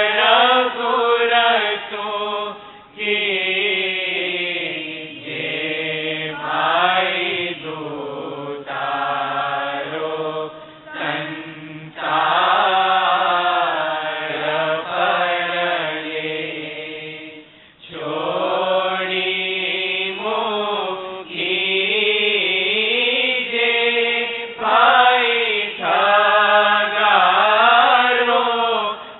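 A voice chanting a slow devotional melody in long held notes that waver and glide, sung in phrases several seconds long with short breaks between them.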